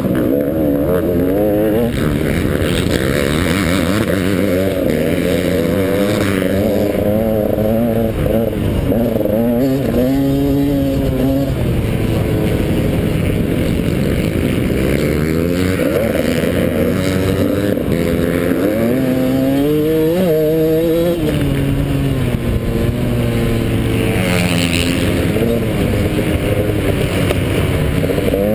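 Off-road racing dirt bike engine heard close up from the rider's helmet. The engine is under hard throttle, its pitch climbing and dropping again and again as the rider accelerates and shifts gears.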